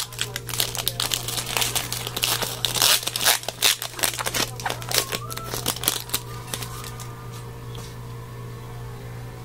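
Foil trading-card pack wrapper being torn open and crinkled by hand, a dense run of crackles that stops about six seconds in, leaving only a steady low hum.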